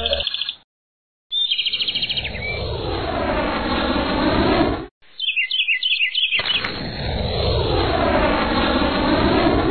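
Cartoon sound effects for a swooping bird: a short burst of rapid high chirps, then a long rushing flyby whoosh. The pair comes twice, and the first whoosh cuts off abruptly.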